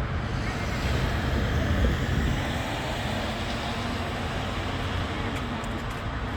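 Freight train of an HŽ series 1141 electric locomotive and Eas open wagons, a steady low rumble that swells slightly about two seconds in.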